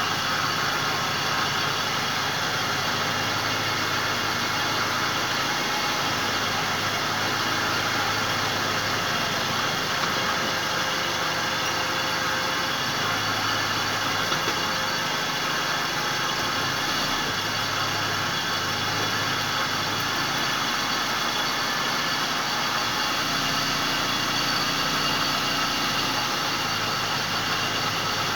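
Car engine running steadily with the car raised and its drive wheels spinning freely off the ground.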